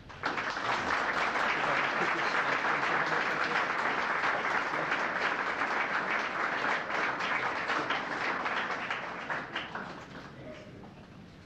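Audience applauding, starting suddenly and dying away over the last couple of seconds.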